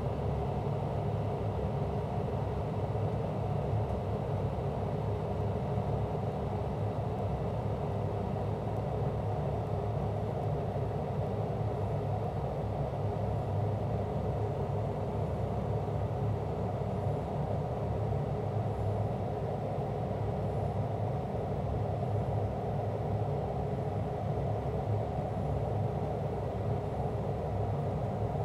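TIG welding the root pass on stainless steel pipe, with a fume extractor drawing air through a hood just above the joint: a steady, unbroken rumble of rushing air over the quiet arc.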